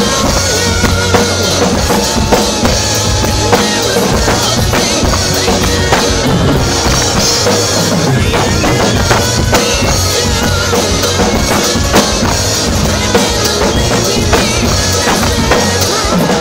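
Acoustic drum kit played through a rock song: kick drum, snare hits and cymbals in a steady groove, with the song's other pitched instruments heard underneath.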